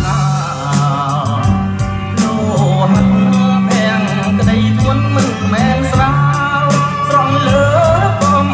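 A song with a singing voice over regular drum hits and a deep bass line, played back through Victor (JVC) SP-MXX1 three-way speakers.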